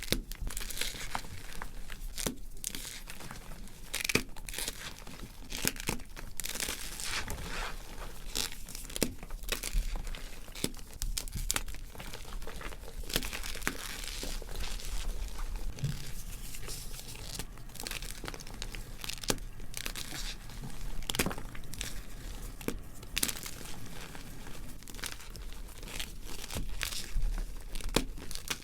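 Blocks of gym chalk being crushed and crumbled, making a continuous dry, crackly crunching with dense irregular snaps.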